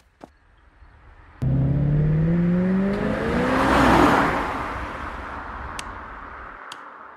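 A car engine starts up loud and revs, its note rising as it accelerates, then rushes past about four seconds in and fades away.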